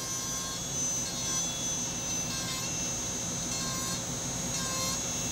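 Steady high-pitched electrical whine over a low hum.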